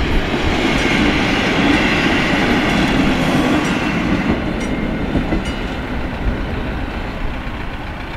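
Diesel railcar passing over a level crossing: a steady rumble of engine and wheels with some clatter from the rail joints, slowly fading as it moves away.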